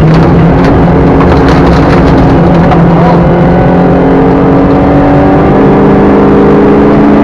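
Rally car engine heard from inside the cabin, running hard under load. The pitch dips about three seconds in and then climbs steadily as the car accelerates. Gravel clatters against the car's underside during the first few seconds.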